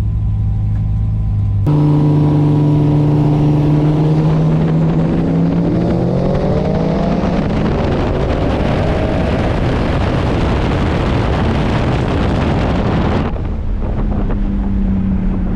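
Car engine running at low revs, then suddenly much louder as it is driven hard, its pitch climbing as it revs up. It drops back to a quieter steady running near the end.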